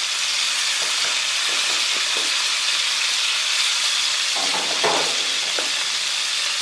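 Monkfish fillet and its poured-on marinade sizzling steadily on a very hot grill pan over a propane grill: a continuous frying hiss.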